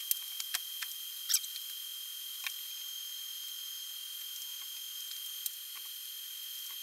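TIG welding arc on stainless steel: a steady high hiss with a thin whine, broken by a few sharp ticks, most of them in the first second and a half.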